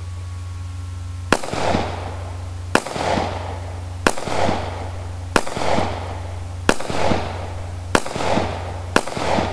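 Taurus PT709 Slim 9mm pistol firing seven shots, roughly one every 1.3 seconds, each sharp crack followed by a fading echo.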